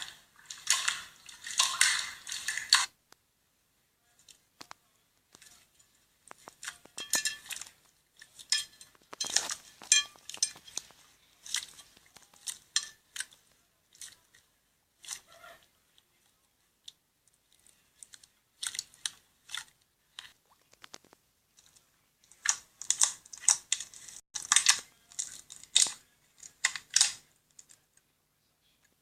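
Slime being squished and pressed, giving bursts of crackling, popping clicks, with a few quiet pauses between the bursts.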